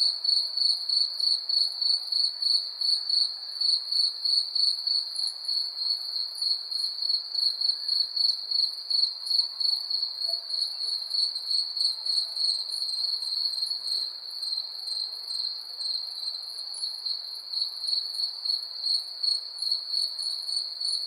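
Crickets chirping in a steady, even pulse of about three chirps a second, with a fainter, higher insect trill above them.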